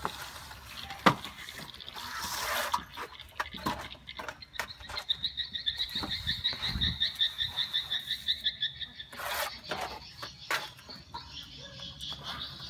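A high, rapid pulsed trill from a small animal, about five pulses a second, from about four to nine seconds in, with a shorter burst near the end. Under it, plastering trowels scrape and tap on fresh cement render with scattered clicks.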